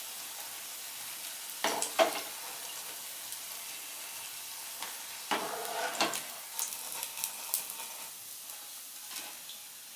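Oil sizzling steadily around potato kababs deep-frying in a pan. Sharp clinks and scrapes of a utensil against the pan come twice, about two seconds in and again in the middle, as the kababs are lifted out.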